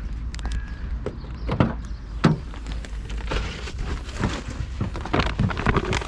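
Steady wind rumble on the microphone, with a series of sharp knocks and rustles from footsteps and handling around an open car boot.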